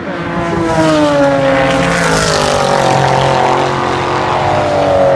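Racing car engines passing at speed, each engine note falling in pitch as the car goes by; the loudest pass is about two seconds in, and a second falling note follows near the end.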